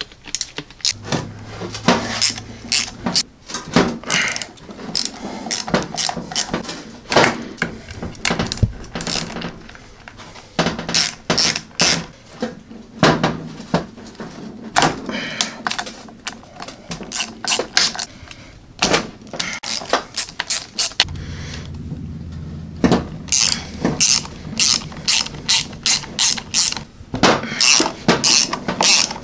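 Hand ratchet wrench clicking in quick runs among clanks of metal parts as bolts are worked loose on a lawn mower transaxle case during teardown.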